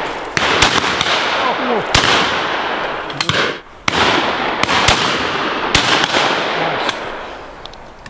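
Shotgun fire on a driven pheasant shoot: a dozen or so sharp shots at irregular intervals, some close and loud and others more distant, with echo filling the gaps between them.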